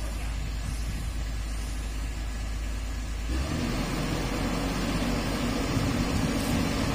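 Diesel engine of a Komatsu PC200-8 hydraulic excavator running steadily, then picking up revs and load about three seconds in.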